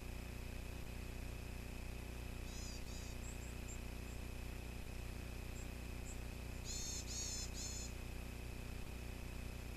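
Varied tit giving short, high, nasal calls: two together about two and a half seconds in, then a run of four about four seconds later. A steady faint whine and low hum run underneath.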